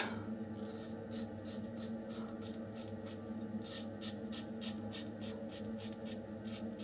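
RazoRock German 37 slant safety razor with a Rapira Swedish Super Steel blade scraping through 24 hours of stubble in a run of short strokes, each a crisp rasp, coming quicker after about three and a half seconds. A steady low hum sits underneath.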